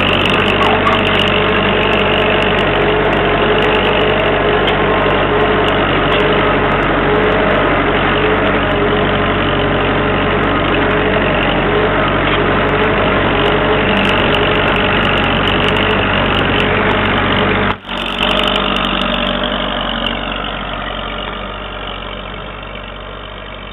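1959 Massey Ferguson 65 tractor engine running steadily while ploughing. The sound breaks off for an instant about 18 seconds in, then slowly fades over the last few seconds.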